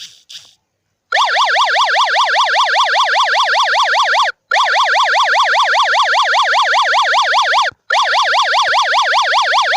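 Smartphone app-lock intruder alarm: a siren played through the phone's loudspeaker, starting about a second in, its pitch warbling rapidly up and down about five times a second, in three stretches broken by two short gaps. It goes off because a wrong password has been entered on the locked app.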